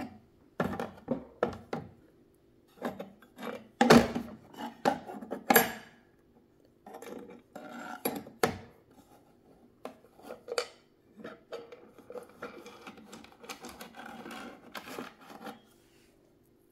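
Metal sewing-machine parts and small tools clinking, knocking and scraping on a hard surface during reassembly, in irregular clicks with stretches of rubbing.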